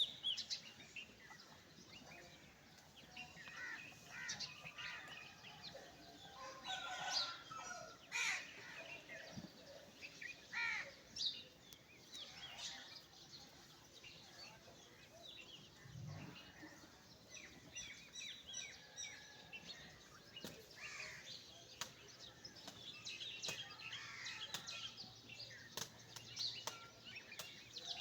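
Faint scattered bird chirps and calls over a low outdoor background, with one brief low sound about midway.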